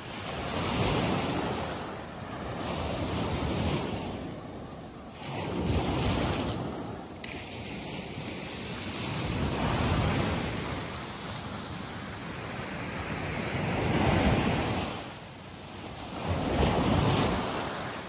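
Small waves breaking and washing up on a sandy beach, the surf swelling and fading every few seconds, with wind buffeting the microphone.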